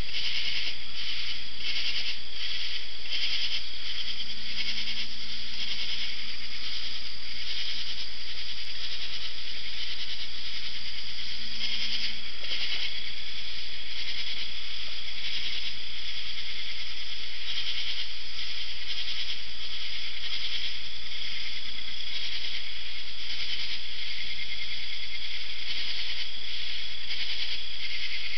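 Night chorus of katydids and other insects: many calling at once in a dense, pulsing rasp that holds steady.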